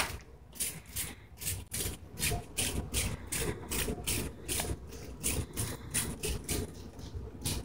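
Quick swishing strokes, about four a second, as spinach rinse residue is spread out over a sheet of paper on a light box.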